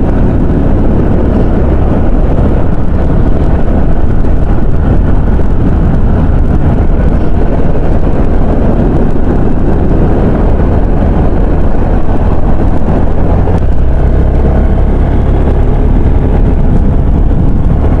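Motorcycle being ridden at a steady road speed, heard from the rider's helmet camera: a steady rumble of engine, tyres and wind, with the lowest rumble swelling slightly about two-thirds of the way through.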